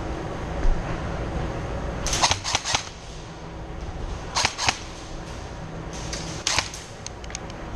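Airsoft gun firing in short bursts: a quick run of sharp cracking shots a couple of seconds in, two more in the middle and another near the end.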